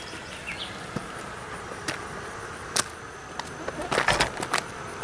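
Quiet outdoor ambience with a steady hiss, a short bird chirp at the very start, then a few sharp clicks and a cluster of rustling knocks about four seconds in.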